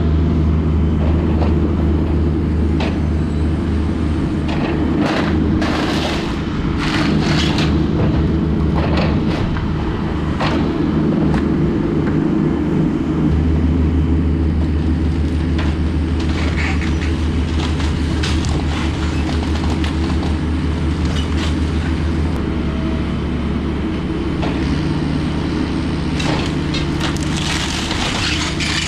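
A small excavator's engine running steadily while it smashes through a house, with repeated cracking and crashing of breaking walls and ceiling in several bursts.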